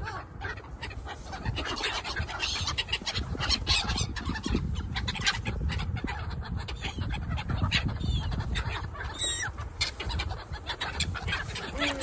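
A flock of black-headed gulls calling in short harsh cries as they flutter close overhead, with wind rumbling on the microphone.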